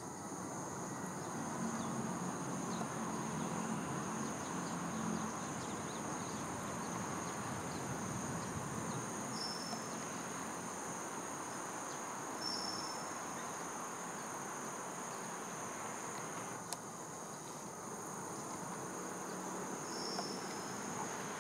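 Summer insects trilling steadily in two high, unbroken bands, over a steady low background hiss, with a few brief high chirps and one sharp click about three-quarters of the way through.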